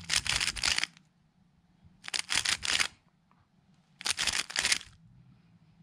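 MoYu RS3M 2020 magnetic 3x3 speedcube turned fast: three quick bursts of clicking layer turns about two seconds apart, each burst one run of the Ab-perm PLL algorithm.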